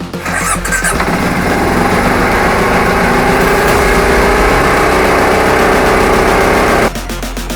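ATV engine starting and running, its pitch slowly rising as it revs up; the sound cuts off suddenly near the end.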